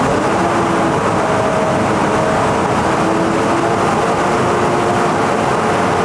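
New Holland farm tractor's diesel engine running at raised RPM, held steady. The engine is revved for the tester's alternator-output check.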